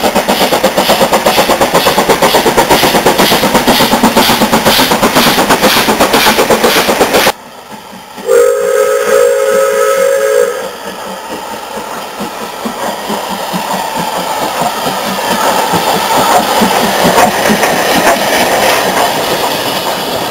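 Steam locomotive passing at speed, its rapid, even exhaust beats loud and continuous. After a sudden cut, a steam whistle sounds for about two seconds. A steam locomotive then works a train past, its exhaust beats growing gradually louder as it draws near.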